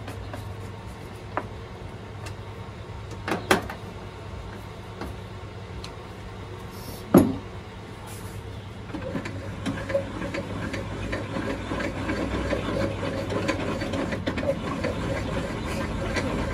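Hand tools handled on a table saw's metal table over a steady low hum: a few light clicks, then a sharp knock about seven seconds in as a screwdriver is set down. From about nine seconds on there is a busier rustling and shuffling.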